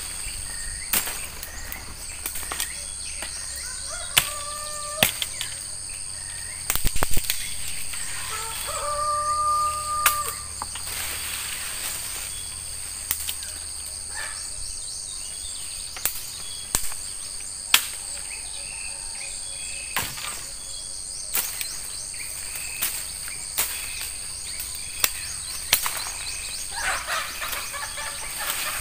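Steady high-pitched insect drone, with sharp snaps and cracks every second or so as plant stems and branches are broken and pulled. A bird calls twice, each a short held note.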